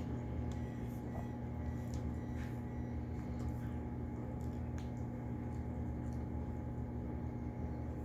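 Someone eating a burrito: a few faint clicks and soft squishes of chewing over a steady low electrical hum.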